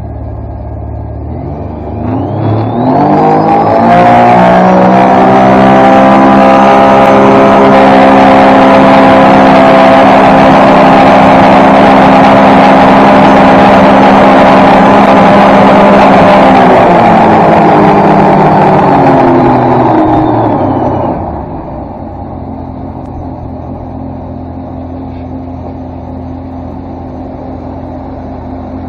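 The boosted engine of a RockProof river jet boat is run up from idle to full throttle about two seconds in and held there for about a dozen seconds, building 13 psi of boost, with a high whine rising over the engine note. It then winds back down to a steady idle under vacuum.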